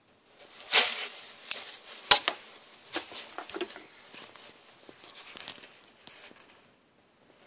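Loose wood-chip substrate rustling and clattering as a monitor lizard strikes at and grabs a dead mouse. There are several sharp crunches in the first three seconds, then fainter shuffling that dies away near the end.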